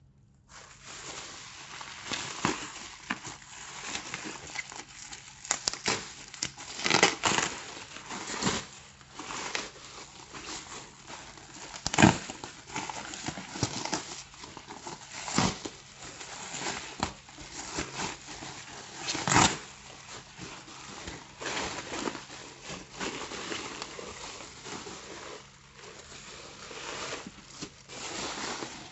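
Packaging crinkling and rustling as a handbag is unwrapped, with sharp knocks and clicks scattered throughout.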